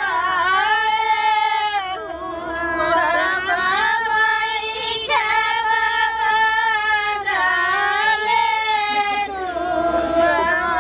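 A high female voice singing a slow melody in long held notes that bend and waver, with no instruments heard.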